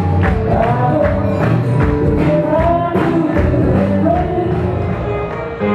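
Song with singing over a steady percussive beat.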